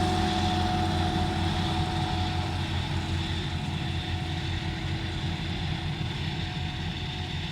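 Heavy farm machinery running steadily, led by a Claas Jaguar 970 forage harvester working with tractors, with a steady whine over a deep engine drone and a slow fade in loudness.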